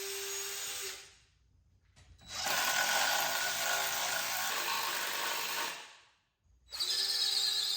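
Electric drill running in three bursts, stopping twice. The middle burst is a noisier whir than the steady hum of the first and last.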